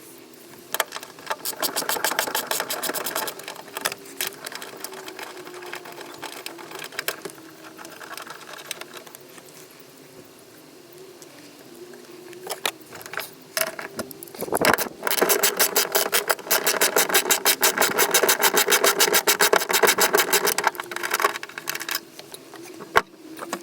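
Rapid mechanical rattling, a fast even train of clicks, in two long runs: a short one about a second in and a longer one from about halfway on. A faint steady hum lies under it.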